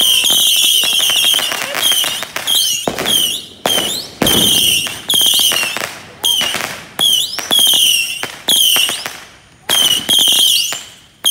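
A ground-launched firework cake firing a rapid series of whistling shots. Each shot is a sharp pop followed by a short, warbling high-pitched whistle that fades, repeating about every half-second to second.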